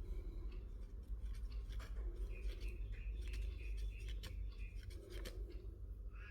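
Small scratches, rubs and clicks of a brush working grey exhaust sealant cement onto a soldering-iron heating element, with a longer stretch of rubbing about two seconds in.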